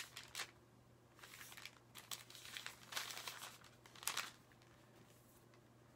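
Thin Bible pages being leafed through: a handful of soft, short paper rustles and crinkles in the first four seconds or so, as the book is paged through to find a passage.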